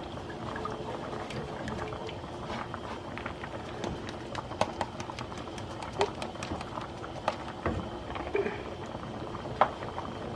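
Alfredo cream-and-cheese sauce simmering in a pan: a steady bubbling hiss, with scattered sharp clicks through the middle and later part.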